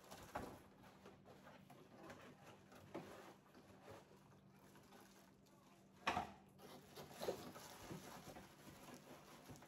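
Faint rustling and handling of a cardboard box and its paper insert while a kitchen tool set is unpacked, with one louder rustle about six seconds in.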